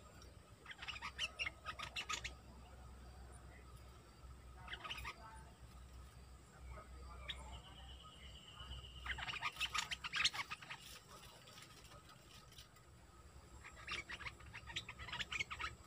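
Bulbul singing in four short bursts of rapid notes with pauses between them. A thin held tone sounds briefly in the middle pause.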